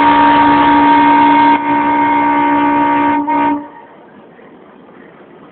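Train horn sounding one long, steady blast of several notes at once, with a brief dip about a second and a half in and a short break just after three seconds. It cuts off at about three and a half seconds, leaving faint background noise.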